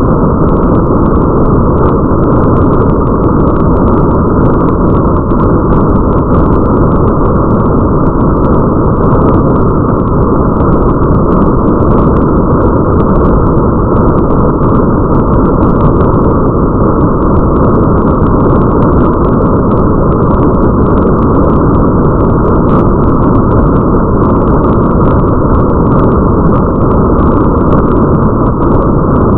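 Rain ambience: a steady, muffled hiss and rumble of rain noise, with faint scattered drop ticks above it.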